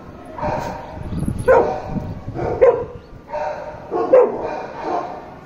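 German Shepherd dogs barking repeatedly: several separate barks, the sharpest about one to one and a half seconds apart.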